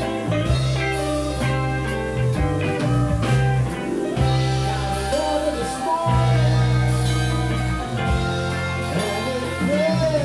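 Live band playing a bluesy rock shuffle, with electric guitars, bass, keyboard and drum kit, and a harmonica carrying an instrumental passage over the top.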